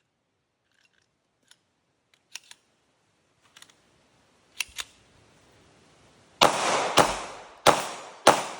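A few light metallic handling clicks, then a Hi-Point C9 9mm pistol on a 3D-printed EBT-9 frame firing four shots about two-thirds of a second apart. Each shot rings on with a fading echo.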